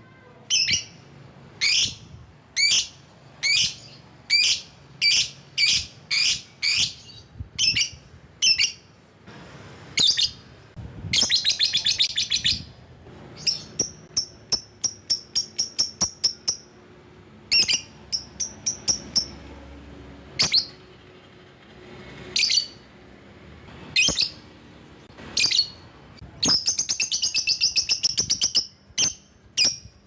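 Lovebird calling: shrill, high chirps repeated about twice a second, broken by fast chattering trills (the long 'ngekek' chatter) about a third of the way in, in the middle, and again near the end.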